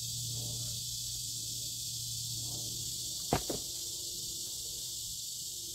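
Steady high-pitched insect hiss from the woods, with one sharp clack about three seconds in and a smaller one right after it.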